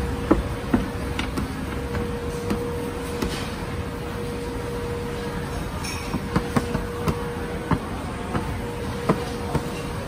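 A plastic dough scraper tapping and scraping on a stainless steel counter: irregular sharp clicks and taps, over a steady background din with a constant hum.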